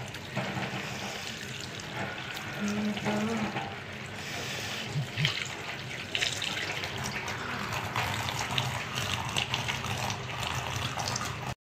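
Tap water running steadily into a plastic colander of sliced taro root (arvi), splashing over the pieces as a hand rubs and rinses them to wash off the taro's slimy sap. The sound cuts off abruptly near the end.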